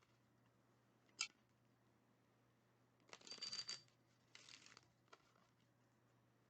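Tarot cards being handled, faint: a sharp tap about a second in, then two short rustling slides of cards a little past the middle, and a light tick after.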